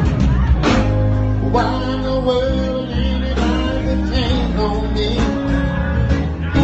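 Live band playing: electric guitar, bass guitar, keyboard and congas.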